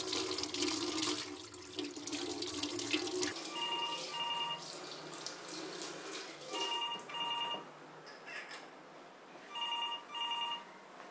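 Kitchen tap running as a carrot is rinsed under it, stopping about three seconds in. Then a telephone rings with an electronic ring three times, each ring a quick double burst, about three seconds apart.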